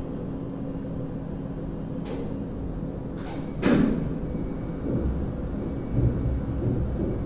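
Machinery of an automated underground car park's car lift: a steady low hum with several sharp metallic clanks, the loudest just before the middle.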